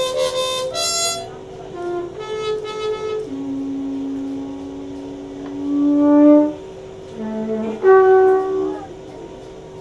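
Background music: a slow melody of held notes over a steady drone, with one long note loudest about six seconds in.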